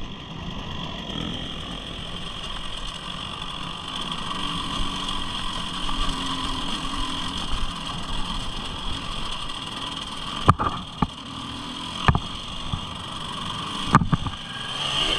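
A motor vehicle's engine running steadily, with four sharp knocks or bumps in the last few seconds.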